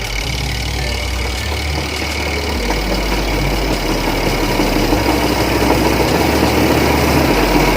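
Spin-dryer tub of a Khind WM1017 semi-automatic twin-tub washing machine running, a steady motor hum slowly getting louder as it spins the water out of the washed laundry.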